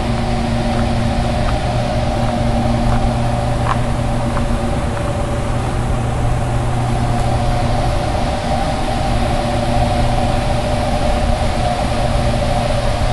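Hydroelectric dam powerhouse machinery humming steadily: several held tones over an even rushing noise, with a few faint ticks in the first few seconds.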